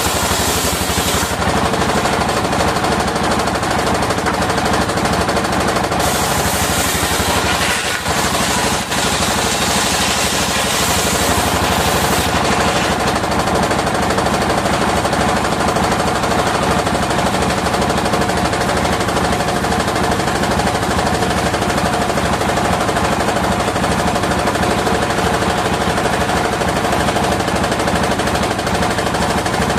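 Engine-driven circular sawmill running and sawing waru (sea hibiscus) timber: a loud, continuous, fast, even chugging rhythm with a steady whine under it. The high hiss swells and drops several times as the blade goes into and out of the wood.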